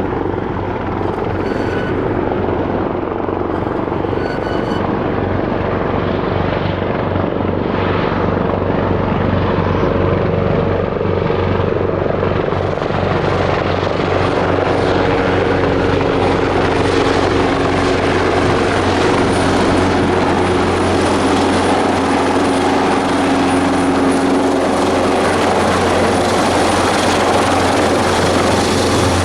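Airbus Helicopters EC225LP Super Puma twin-turboshaft helicopter running, with a steady low rotor beat; about twelve seconds in a high turbine whine comes in and the sound grows slightly louder.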